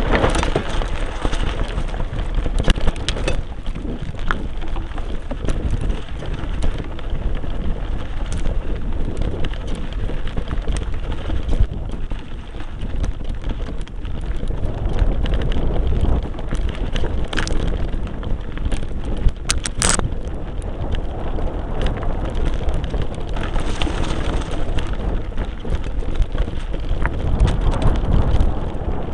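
Mountain bike ridden over a rocky dirt trail, heard through a front-mounted camera: wind rumble on the microphone over a constant rattle and crunch of tyres on loose stones. A few sharper knocks stand out, the hardest about twenty seconds in.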